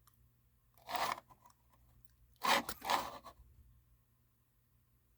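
Three short scraping, crinkling bursts of handling noise: one about a second in and two close together near the middle.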